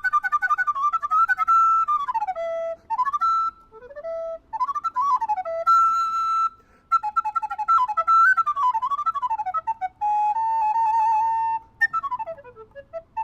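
Solo recorder playing a melody that imitates nightingale song: a rapid trill between two notes, swooping slides up and down, short pauses, a wavering held note about ten seconds in, and a falling run near the end.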